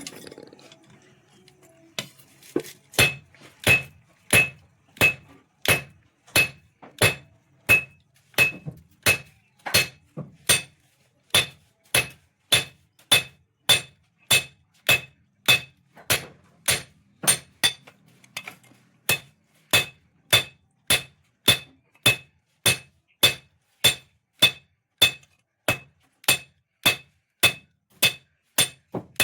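Blacksmith's hand hammer striking a sickle blade on an anvil in a steady forging rhythm, about one and a half blows a second, each blow ringing metallically. The hammering starts about two seconds in.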